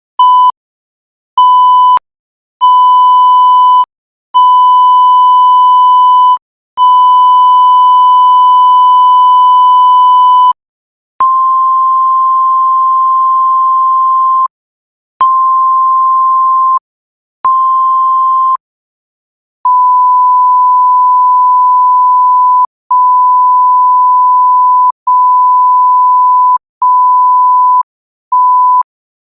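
A string of censor bleeps: steady high single-pitch tones switched cleanly on and off, each lasting from under a second to about four seconds, with short silent gaps between. The first run has a slightly buzzier edge, the middle ones are a touch higher, and the last ones are pure beeps that get shorter towards the end.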